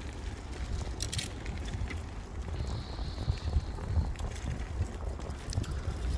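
Wind rumbling on the microphone of a moving bicycle, with a few sharp clicks and rattles. A faint, thin high tone sounds for about a second, about three seconds in.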